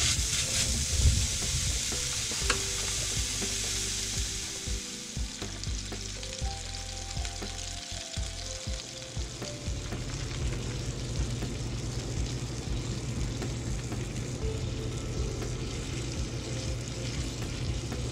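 A raw ground-beef patty sizzling on a hot griddle: the sizzle comes on suddenly as the meat goes down, is strongest at first, then settles to a softer, steady frying sound.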